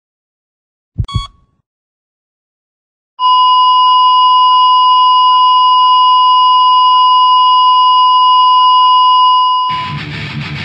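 A short double thump with a brief beep about a second in, then a loud, steady electronic beep tone held for about six and a half seconds. Near the end the tone fades as heavy rock music with electric guitar starts.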